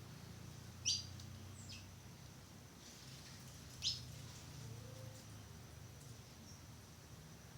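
A small bird chirping: three short, high chirps that sweep quickly downward. The two loudest come about a second in and about four seconds in.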